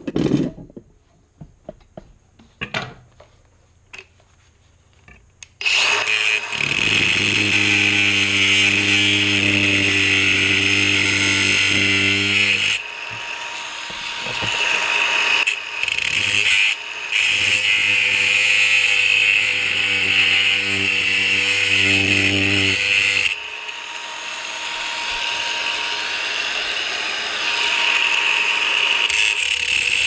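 Cordless angle grinder with a cut-off disc starting up about six seconds in and cutting into a padlock's body: a steady motor whine under a loud grinding hiss. It eases off twice for a few seconds before building again. Before it, a few clicks and knocks of handling.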